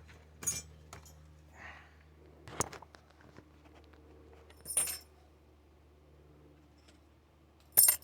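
Four sharp metallic clinks and rattles as metal parts of a flat-screen TV are handled during disassembly, the last and loudest near the end, over a faint steady hum.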